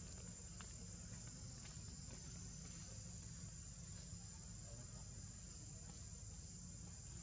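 Faint, steady high-pitched insect drone, with a low rumble underneath.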